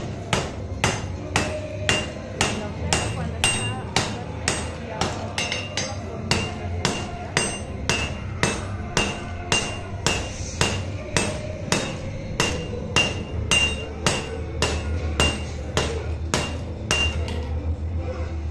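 Blacksmith's hammer striking red-hot iron on an anvil in a steady rhythm, about two blows a second, each with a short metallic ring. The hammering stops near the end.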